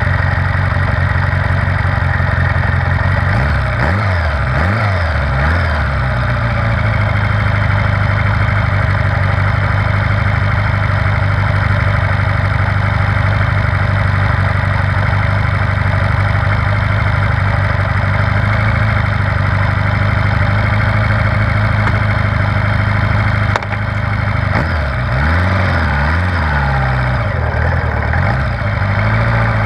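1978 Honda GoldWing's flat-four engine idling steadily, its revs rising and falling briefly a few seconds in. About 24 seconds in there is a single clunk, and the revs rise and fall again as the bike pulls away.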